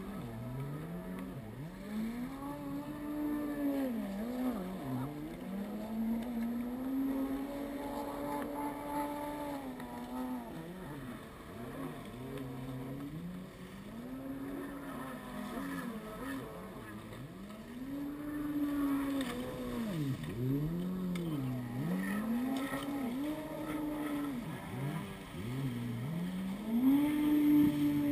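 Jet ski engines running out on the water. Their pitch rises and falls over and over as they throttle up and back off, and at times two engines are heard at once.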